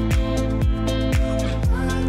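Background music with a steady beat, about two beats a second, over sustained bass notes.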